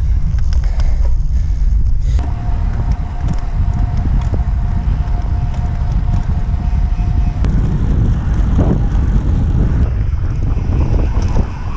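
Wind buffeting the microphone of a camera mounted on a road bike while riding at speed, a steady low rumble. A thin steady whine sits over it for about five seconds in the middle.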